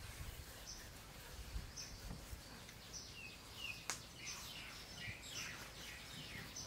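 Faint birdsong: short high chirps repeating every second or so, with a couple of falling notes about three seconds in. A single sharp click comes about four seconds in.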